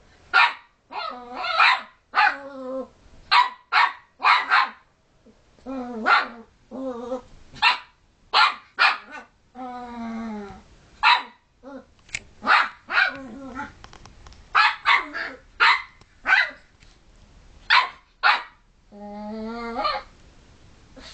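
Puppy barking in play, dozens of short high yaps in irregular quick runs, with two longer drawn-out growling calls, one about ten seconds in and one near the end.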